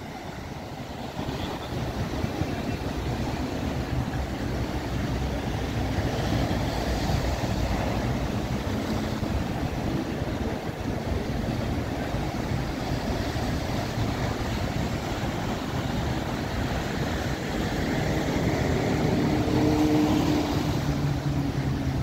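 Sea waves washing steadily under wind buffeting the microphone, with a low rumble throughout. Near the end a low steady engine hum joins in from a small fishing boat's motor.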